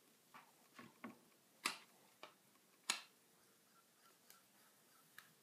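A few faint sharp clicks as a flat iron is handled and clamped on sections of hair. Two louder clicks come a little over a second apart, in the middle, among weaker ticks.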